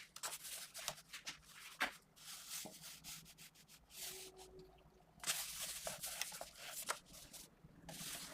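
GraphGear 500 mechanical pencil with 0.5 mm 2B lead scratching across paper in many short sketching strokes, some bunched together and some held a little longer.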